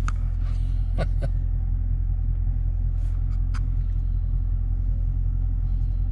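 Dodge Challenger Scat Pack's 392 V8 idling, heard from inside the cabin as a steady low rumble. A few short clicks come about a second in and again around three seconds in.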